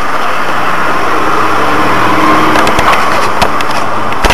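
Dashcam recording of a car collision: steady road noise, then a run of sharp cracks and knocks from about two and a half seconds in, ending in one loud bang near the end as the cars strike.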